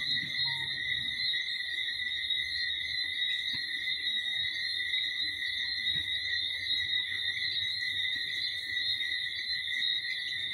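Steady chorus of calling crickets: a high, even trill held without a break.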